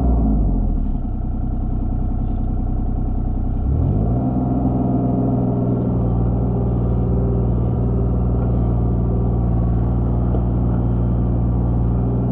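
Heavy equipment engine running steadily. Its speed drops at the start, stays down for a few seconds, and picks back up about four seconds in, then holds at a steady speed.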